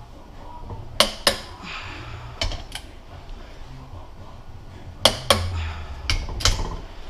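Sharp metallic clicks and clinks of hand tools and metal transfer-case parts being handled, coming in about four quick pairs with a brief ring after each.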